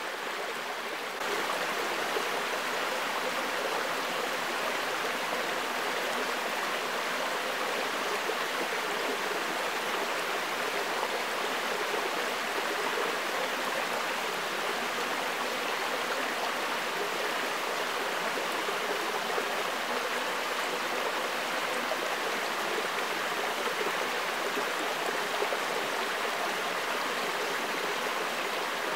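Shallow forest creek running over rocks: a steady rush of flowing water that steps up a little in loudness about a second in.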